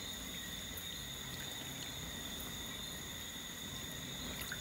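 Night insects in a steady high-pitched chorus, with faint splashes of water near the end.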